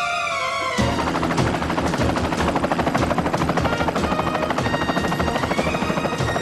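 Rotor chop of a Eurocopter Écureuil light helicopter flying past, starting abruptly just under a second in as a fast, even beat.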